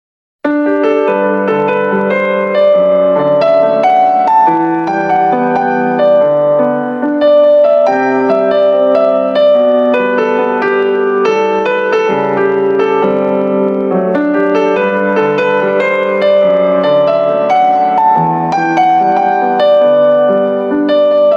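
Background piano music; it starts about half a second in after a brief silence.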